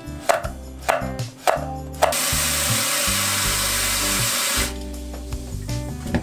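Kitchen knife chopping chili peppers on a wooden cutting board, four chops about half a second apart. Then tap water pours into a stainless steel bowl of sliced peppers for a couple of seconds, and after it stops a hand swishes the peppers in the water. Background music throughout.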